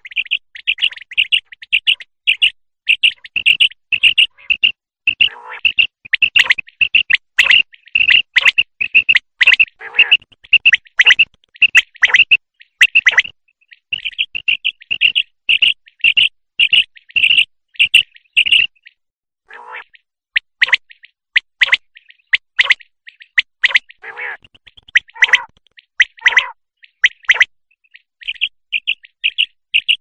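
Common quail calling: fast trains of short, high chirps, several a second, with lower, coarser notes mixed in through the middle stretch. The calling breaks off briefly a few times.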